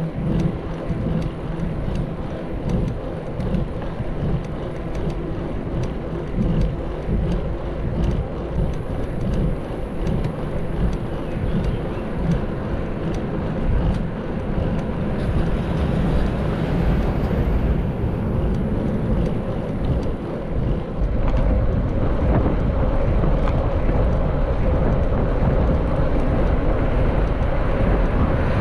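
Wind buffeting the microphone over the rumble of a moving mountain bike. It gets louder and steadier about two-thirds of the way through.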